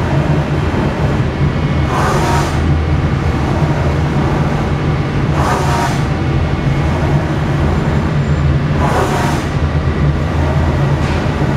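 Powered-up Femco HL-35 CNC lathe humming steadily, with a short hiss three times, about every three and a half seconds.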